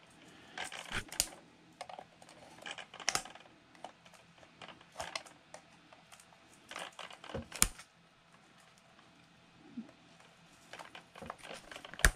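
Irregular clicks and taps of hands handling the trimmer's parts, with a sharper knock about two-thirds of the way through.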